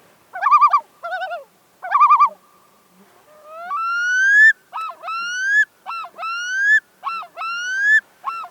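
A bird calling: three short quavering, wavering calls, then a series of rising, slurred calls repeated about once a second.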